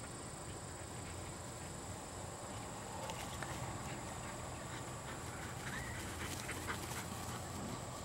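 Bird dog chasing a flushed bird through grass, with a few faint short calls from about halfway through, over a steady high-pitched hum.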